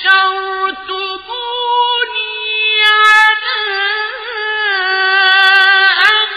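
A solo male reciter chanting Quranic verses in melodic tajweed style, drawing out long held notes with ornamented turns in pitch and short breaths between phrases.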